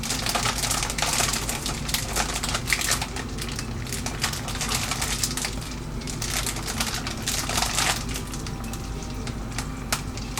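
Busy kitchen handling noises: a quick, irregular run of clicks, taps and crinkling rustles over a steady low hum.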